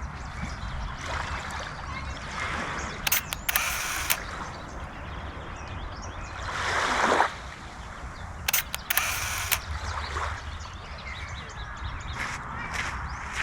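Small waves lapping and washing on a beach shore, one wash swelling and breaking off about halfway through, over a steady low rumble; a few sharp crackles twice, a third of the way in and about two-thirds in.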